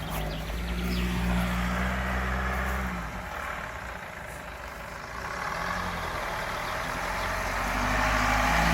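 Off-road 4x4's engine running under load, easing off about three seconds in and building up again louder toward the end.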